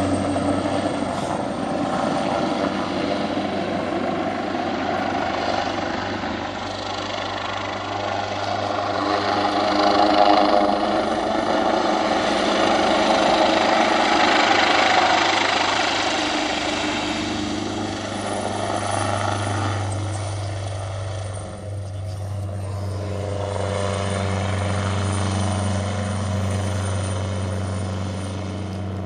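Rescue helicopter flying nearby, its rotor and turbines making a steady low beat under a rushing whine. The sound swells to its loudest about a third to halfway through and eases off after about twenty seconds.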